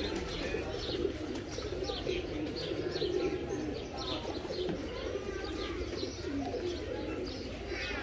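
Many domestic pigeons cooing together in a dense, continuous low murmur, with many short high chirps throughout.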